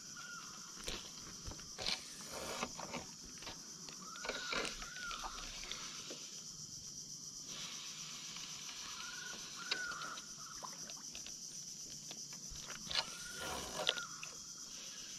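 Steady high insect chorus, with a wild animal's call of two arching notes repeating about every four seconds, and scattered light clicks from fishing tackle being handled.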